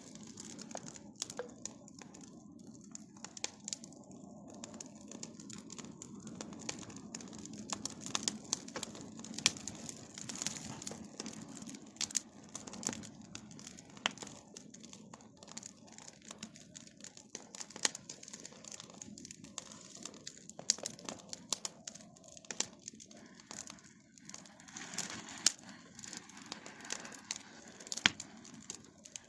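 Bonfire crackling and popping, with irregular sharp snaps over a low steady rush.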